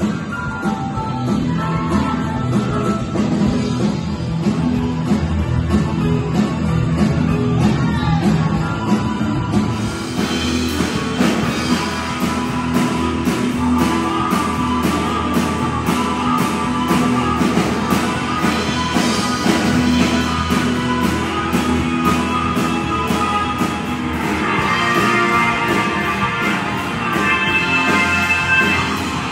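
A live rock band playing, with drum kit, electric guitar, keyboard and harmonica, recorded on a phone in the room. About ten seconds in it cuts to another clip of the band.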